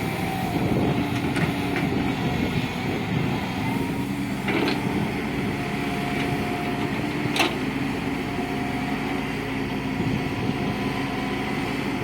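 Diesel engine of a JCB 3DX backhoe loader running steadily while it works, with a few sharp knocks, the clearest about four and a half and seven and a half seconds in.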